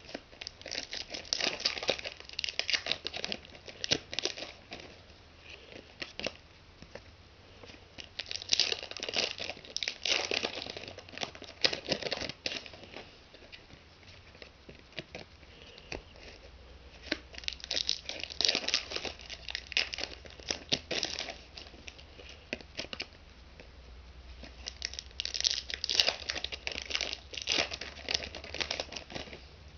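Foil trading-card packs being torn open and crinkled by hand, in four spells of crackly rustling with quieter stretches between.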